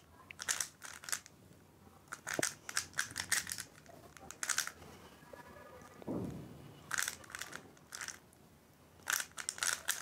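A plastic 3x3 Rubik's cube being turned fast by hand during a speedsolve: quick bursts of clicking, clacking layer turns, separated by short pauses.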